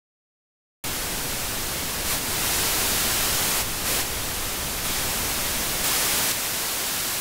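Static hiss, like a television tuned to no channel. It cuts in suddenly from silence just under a second in and grows brighter and louder for a moment a few times.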